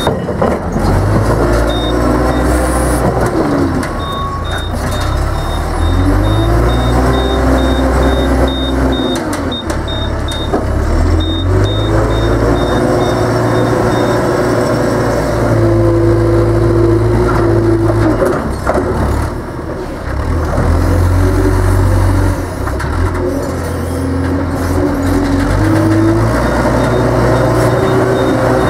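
JCB telehandler's diesel engine revving up and down repeatedly as it manoeuvres and loads silage. Its reversing alarm beeps steadily through the first half and starts again near the end.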